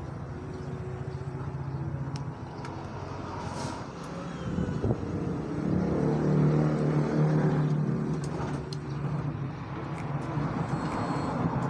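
A vehicle engine running nearby, a steady hum that grows louder about six to seven seconds in and then eases, with a few faint clicks over it.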